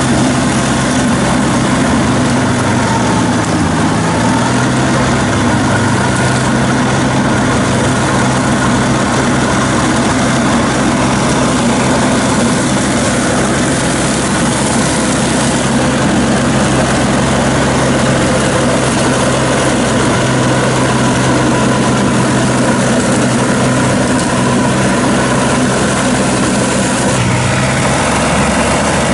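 KANEKO hammer-knife crawler mower running steadily under load, its engine and front hammer-knife rotor working through dense weeds. The engine note sags briefly a few seconds in.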